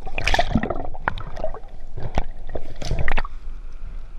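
Water splashing and gurgling around a camera housing at the sea surface as a diver swims with fins, in irregular surges about once a second.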